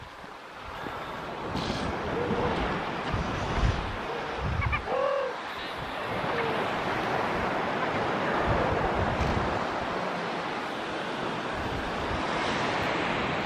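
Surf on the beach mixed with wind noise on the microphone, steady, with one short pitched call about five seconds in.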